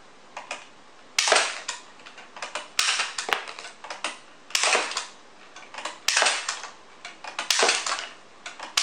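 Toy card launcher (basic Bá Vương Xạ Thủ model) firing cards one at a time: about six sharp snaps roughly a second and a half apart, each with a short rattling tail.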